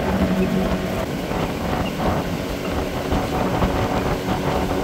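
Motorboat running at speed: a steady engine hum under the rush of wind and water.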